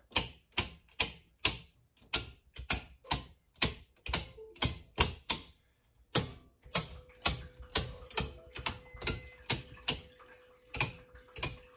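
Square D QO circuit breakers snapped on one by one after the main, a quick run of sharp clicks at about three a second with a short pause about halfway; power is being restored to the house circuits. A faint steady hum comes in about seven seconds in.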